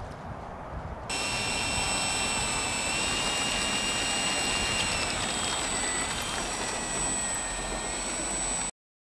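Radio-controlled Zero fighter model's motor and propeller running at low throttle as it taxis on grass: a steady high whine. It becomes loud suddenly about a second in, sags slightly in pitch in the second half, and cuts off abruptly near the end.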